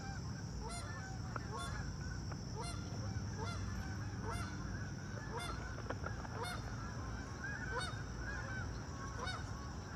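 A flock of birds calling over and over, many short pitched calls overlapping, with a steady high hiss underneath.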